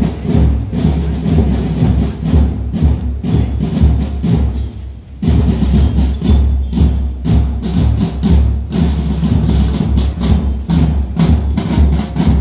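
Marching drum band of snare and bass drums playing a steady march beat. The beat drops off briefly about five seconds in.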